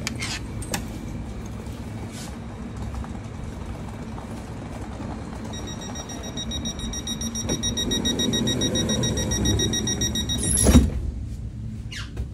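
Electric commuter train standing at the platform with its equipment humming, then the door-closing warning tone sounds steadily for about five seconds while the sliding passenger door moves, ending in a loud thud as the door shuts, about eleven seconds in.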